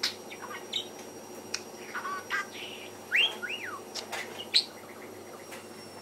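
Budgerigar chattering: a string of short chirps, sharp clicks and squeaky whistled notes, with two arching whistles about three seconds in.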